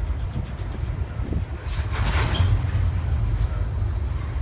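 Intermodal freight train's cars rolling past on the rails with a steady low rumble. A louder hissing surge comes about two seconds in.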